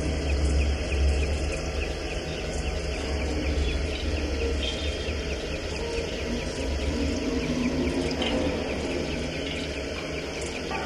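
Ambient sound-installation score built from a modular synthesizer and recordings of hot ceramics: a deep steady drone, strongest in the first few seconds, under a dense layer of fine high crackling, with a few short low tones around the middle.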